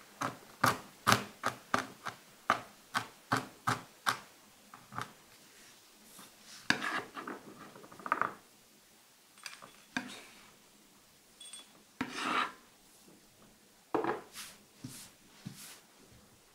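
Chef's knife finely chopping pistachios on a wooden cutting board. A quick run of sharp taps comes first, about two to three a second, then the blade scrapes across the board to gather the chopped nuts, with a few more taps between.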